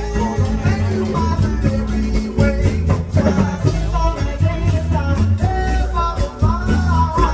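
Music with a singing voice over bass, drums and guitar, with a steady upbeat rhythm.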